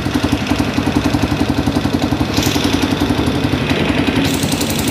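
Honda TMX155's air-cooled single-cylinder four-stroke engine idling steadily with an even, rapid pulse. It is running on a carburetor whose fault was a closed replacement air screw. A hiss comes in about halfway and again near the end.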